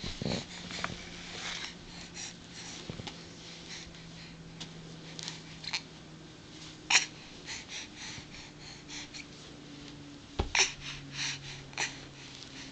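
A baby's breathy grunts and snuffles while she rocks on hands and knees on a bed, with scattered rustles and taps of the sheets and a soft thump about ten and a half seconds in.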